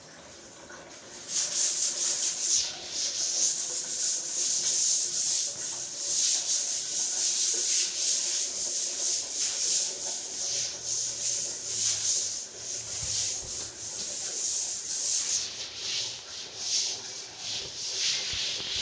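Short hand broom swept in quick, repeated scratchy strokes across a wet tiled floor, pushing water out. The sweeping starts about a second in.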